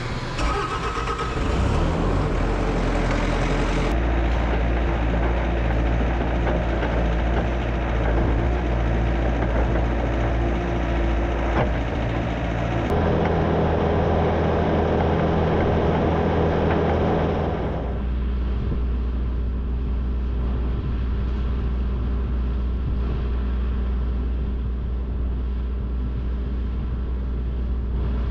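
Skid steer engine starting up and running steadily. The revs rise about 13 seconds in and drop back about five seconds later.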